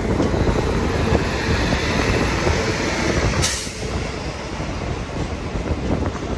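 An express train passing close by on the next track: a WAP7 electric locomotive goes by, then its coaches, with wheels clattering over the rail joints and a steady rumble. A brief rush of hissing noise comes about three and a half seconds in.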